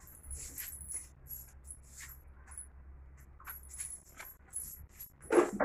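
A small bell jingling and rattling in short, irregular bursts inside a cat's toy ball as a kitten bats it about, over a low steady hum. A louder bump comes near the end.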